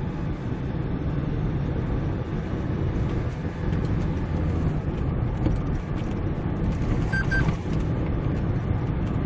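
Cabin noise of a Kia Bongo 3 truck pulling in sixth gear up a slight incline: a steady low engine drone with road noise. A brief high tone sounds about seven seconds in.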